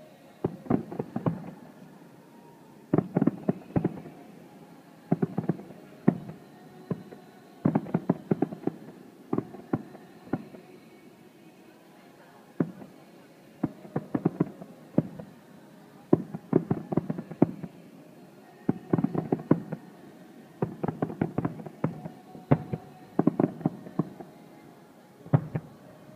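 Distant fireworks display: aerial shells bursting in quick clusters of sharp bangs every second or two, each cluster trailing off in a low rumble.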